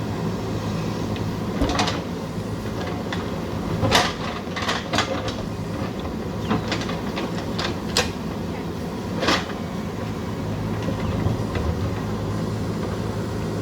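JCB backhoe loader's diesel engine running steadily under work, with about seven sharp clanks and knocks from the working machine scattered through it, the loudest about four seconds in.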